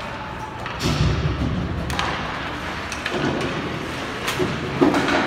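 Ice hockey play in a rink: several knocks and thuds against the boards, the loudest a deep thud about a second in.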